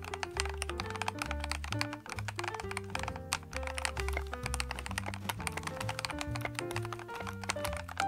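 Continuous typing on a MechLands MC66 65% mechanical keyboard: a rapid, uneven patter of key clicks and clacks, under background music with held notes and a steady bass line.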